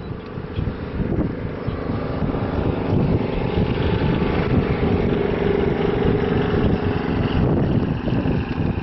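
Wind rumbling on the microphone, with a motor vehicle's engine humming steadily in the background for most of the stretch, fading out near the end.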